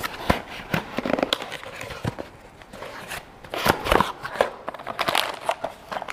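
A small cardboard box being handled and opened: scattered taps, scrapes and rustling of cardboard, with a couple of dull thumps as it is knocked or set down, and the crinkling of a plastic parts bag near the end.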